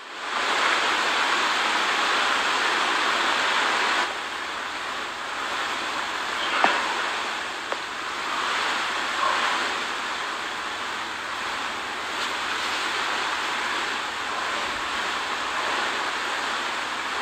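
A steady, even rushing hiss, a little louder for the first four seconds, with two short clicks a few seconds in.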